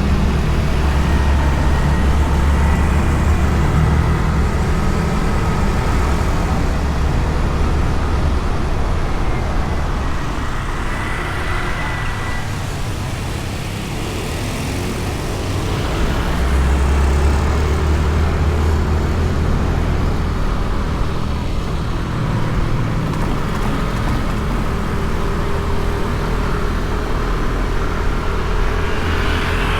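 Honda Beat scooter being ridden in traffic, heard through a bike-mounted action camera: a steady low engine and road rumble with wind and passing traffic. The rumble eases off a little around the middle and picks up again.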